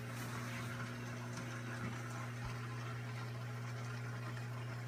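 Saltwater aquarium pumps running with a steady electrical hum over a constant wash of moving, bubbling water.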